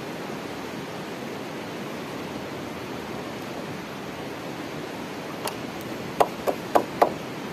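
A stream rushing steadily, and near the end about five sharp clicks in quick succession from pliers twisting and snipping the steel wire that binds the log crosspieces.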